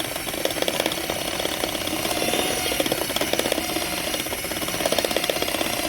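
Dryer vent cleaning tool running steadily inside the vent duct, with a fast, even rattle, working lint loose.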